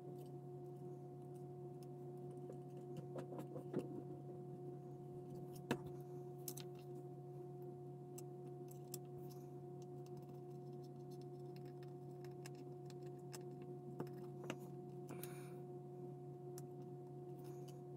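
Faint clicks and taps of small plastic model-car parts being handled and pressed into place, over a steady low hum. The sharpest clicks come about 4 and 6 seconds in, and twice near 14 seconds.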